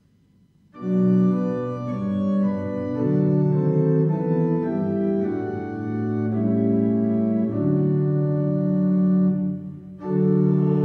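Church organ playing the opening of a hymn: full sustained chords that change every second or so, starting under a second in, with a short break near the end before the next chord.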